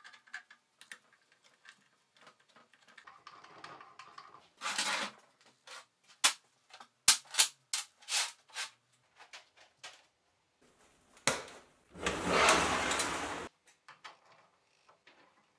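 Steel roller chain and sprocket being handled on a metal workbench: scattered metallic clicks and clinks as the chain links knock together, with a longer, loud rattle of the chain lasting over a second near the end.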